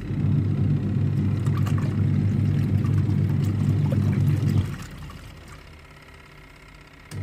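Polytron PWM 7363 twin-tub washing machine on its wash cycle: the wash motor hums while the pulsator churns laundry in water, stops after about four and a half seconds, then starts again near the end. This run-pause-run pattern is the alternating wash action of the wash tub.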